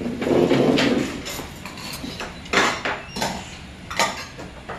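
Eating sounds at the table: a loud muffled burst in the first second, then a few short sharp knocks of a metal spoon against an earthenware soup bowl.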